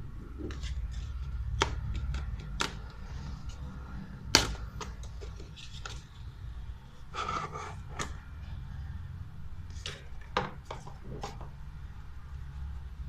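Hands handling and unpacking camera accessories and their packaging: scattered clicks, taps and rustles, the sharpest click about four seconds in, over a low steady hum.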